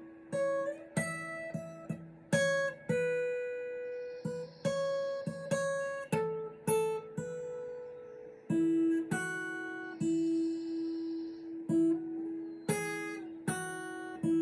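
Acoustic guitar played without singing: single picked notes and light strums, each struck note ringing out and fading, with a few longer held notes.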